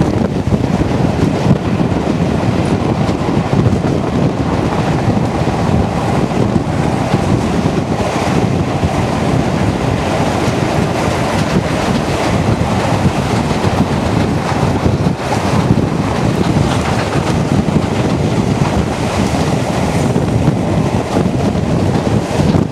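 Heavy wind buffeting a microphone held out of the window of a moving steam-hauled train, over the steady running noise of the train, whose locomotive is the LNER K4 2-6-0.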